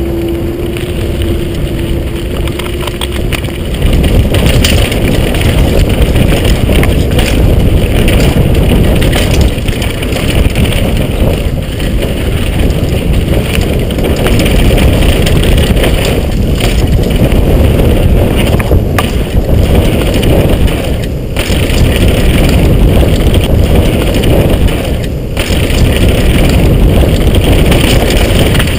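Wind buffeting the microphone and the clatter of a downhill mountain bike over rough trail, a loud continuous rumble from about four seconds in. A steady hum plays under the first few seconds.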